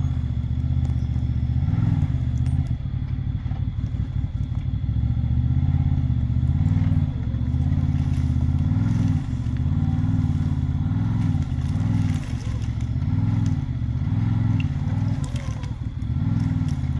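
Can-Am Maverick XRC 1000 side-by-side's V-twin engine working under load while dragging a log, its revs rising and falling in repeated surges about once a second.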